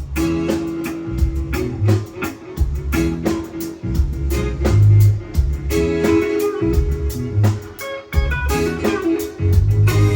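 Live reggae band playing an instrumental break, a guitar melody over bass and drums.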